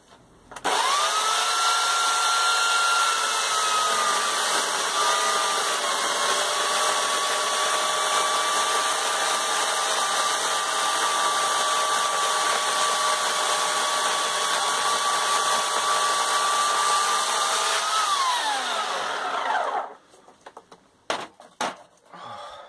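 Corded electric chainsaw cutting through a log: the motor starts up with a high whine about half a second in, drops a little in pitch as the chain bites into the wood and then holds steady through the cut. After about 18 seconds the trigger is released and the whine falls away as the chain spins down, followed by a few light knocks.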